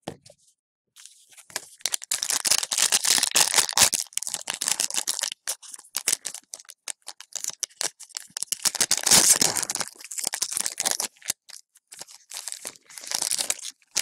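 Foil wrapper of an Upper Deck hockey card pack being torn open and crinkled in the hands: crackling in three spells, with sharp crinkles throughout.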